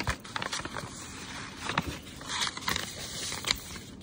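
A rolled paper letter rustling and crinkling as it is unrolled and flattened by hand, with many small sharp crackles.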